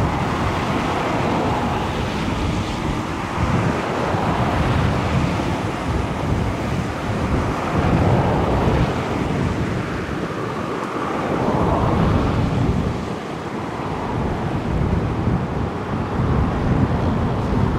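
Wind buffeting the microphone outdoors: a rushing, rumbling noise that swells and eases in gusts every few seconds.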